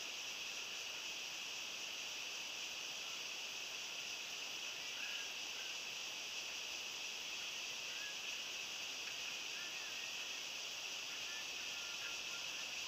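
Steady, high-pitched insect chorus droning without a break, with faint distant voices now and then in the second half.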